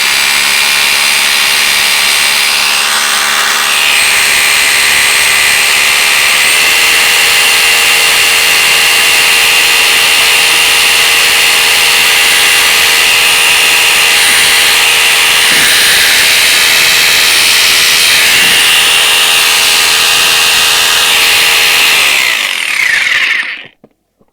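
JCB 21RH1050W 1050-watt SDS rotary hammer drill running steadily and loudly. Its motor note steps up slightly about six seconds in, then winds down and stops near the end.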